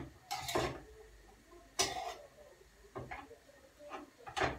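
A metal utensil knocking and scraping against cookware in a handful of short, separate clatters, the loudest about two seconds in.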